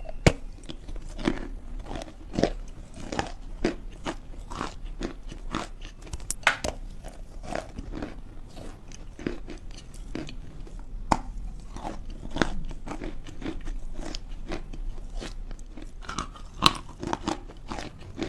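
Natural chalk being bitten and chewed close to the microphone: a run of irregular crunches with a few louder, sharper bites.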